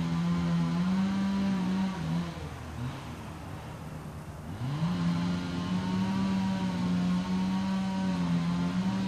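Two-stroke chainsaw running at high revs, its pitch sagging a little under load as it cuts. About two seconds in the throttle is let off and the engine winds down, then it revs back up about five seconds in and runs on at full speed.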